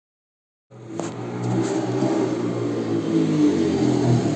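A motor vehicle engine running and revving, starting suddenly a little under a second in.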